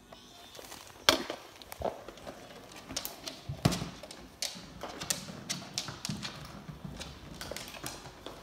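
A plastic electronic treat ball knocking and rolling on a hardwood floor as a dog noses it along, with irregular clicks and taps and the dog's claws on the boards. One sharp knock about a second in and another near four seconds are the loudest.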